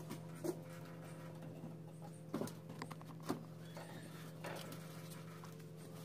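Lumps of charcoal clinking and knocking against each other as they are stacked by hand in a sheet-metal BBQ grill box. Several short, sharp knocks, the loudest about two and a half and three and a half seconds in, over a steady low hum.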